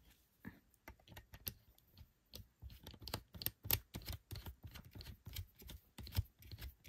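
Irregular small plastic clicks and taps of a GoPro Hero 12 and its grip mount being handled, as the mounting thumbscrew is worked loose to refit the camera. The clicks grow denser about two seconds in.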